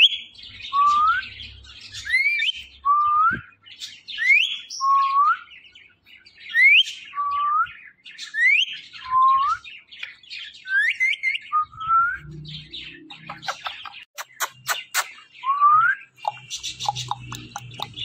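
Indian ringneck parakeet giving repeated whistled calls: a high rising whistle followed by a lower, shorter rising note, the pair coming about every two seconds. A few sharp clicks sound about three quarters of the way through.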